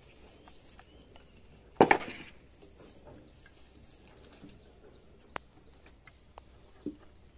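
Freshly sawn wooden rafters being set down on one another: one loud double knock of wood on wood about two seconds in, then a few light wooden knocks and ticks as the boards are shifted about. Faint bird chirps.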